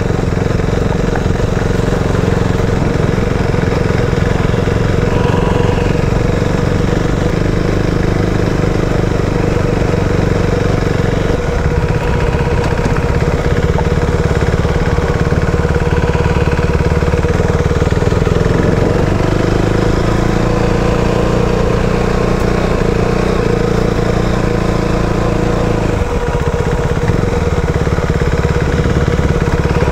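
KTM Duke 390's single-cylinder engine running steadily under way. Its engine note shifts about 11 seconds in, again near 19 seconds, and again near 26 seconds.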